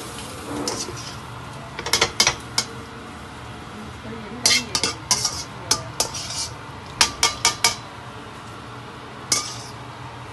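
Metal kitchen utensils and a strainer clinking and knocking against a metal wok, in short scattered clusters of sharp clinks.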